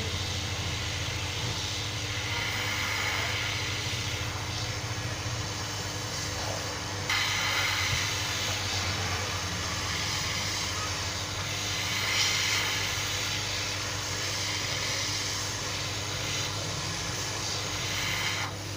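Hot air gun blowing steadily, a constant rush of air over a low fan hum, growing slightly louder about seven seconds in; it is heating a phone's touchscreen edge to soften the adhesive.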